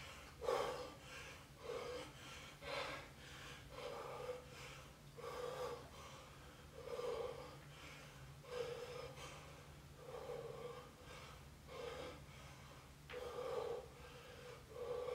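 A man breathing hard and rhythmically while doing bodyweight air squats, one breath with each rep, about every one and a half seconds.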